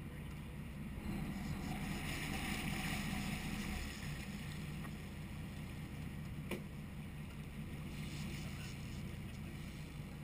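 Sportfishing boat's engine running steadily, with water and wind noise over it; a louder rushing hiss from about one to four seconds in, and a single sharp click about six and a half seconds in.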